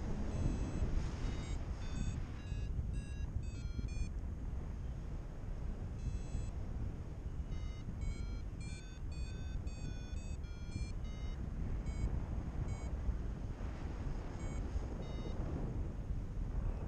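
Paragliding variometer beeping in short tones that vary in pitch, the audio climb signal that the glider is rising in lift, over steady wind rush on the microphone.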